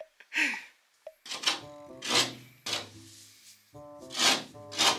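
A hand board rasp with a perforated metal blade scraping along the cut edge of a gypsum plasterboard sheet: a few short strokes about a second in and another run near the end, over background music.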